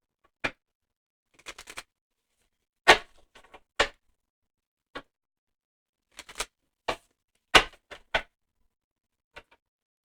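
Tarot cards being handled and laid down on a table: a scattered series of short, sharp taps and slaps at uneven intervals, the loudest about three seconds in and again near the eight-second mark.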